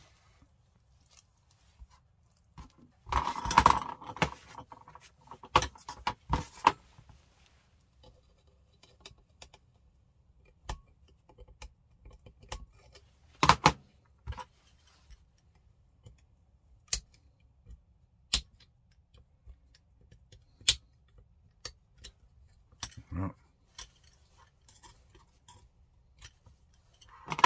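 Small metal clicks, taps and rattles of hand tools and parts being worked inside an airsoft rifle's lower receiver, prying a tangled trigger spring off the front pin. A louder cluster of rattling comes about three to four seconds in, then sharp single clicks every second or two.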